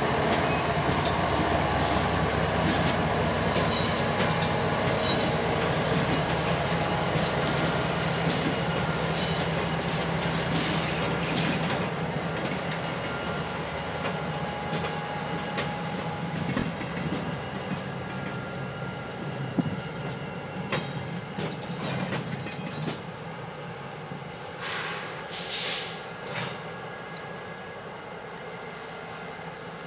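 Diesel freight locomotive running past with a heavy low rumble that fades after about twelve seconds, then slow-moving freight cars with steel wheels squealing on the rails and occasional clanks during switching. Two short hisses come near the end.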